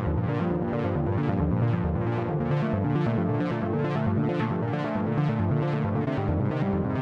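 Electronic background music: synthesizer chords over a steady pulsing beat of about three hits a second.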